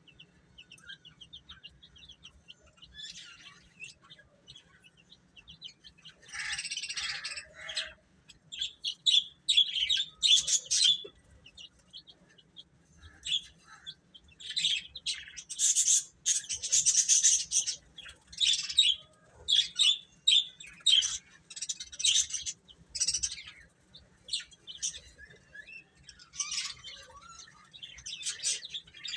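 Baby chicks peeping: many short, high chirps, soft at first, then louder and denser in clusters from about six seconds in.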